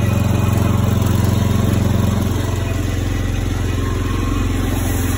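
Engine-powered agricultural power sprayer running steadily, its small engine driving the pump that circulates pesticide mix through the hoses. The engine note eases slightly a little after two seconds in.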